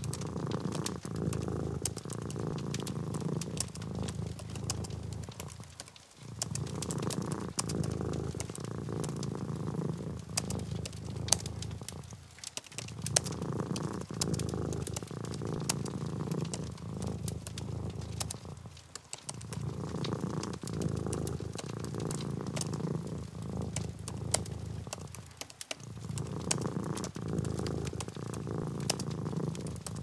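Domestic cat purring, a steady low rumble that breaks off briefly about every six seconds between breaths. Scattered light clicks sound over it.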